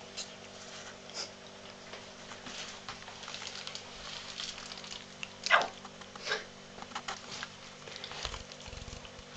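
Siamese kitten licking and nibbling greasy fingers: a run of small wet licking and smacking clicks, with a louder short sound about five and a half seconds in and another a second later.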